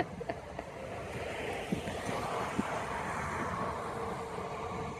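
A passing vehicle, its noise swelling over a couple of seconds and then fading away, after a sharp click at the very start.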